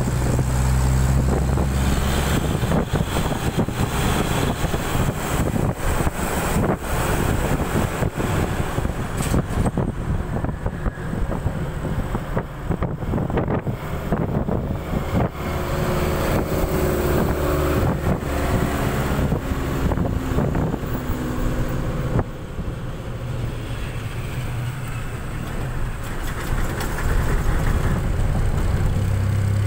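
Bus engine and road noise heard from inside a moving bus with an open window. The engine pitch climbs in steps around the middle as the bus picks up speed, and it settles to a low, steady hum near the end.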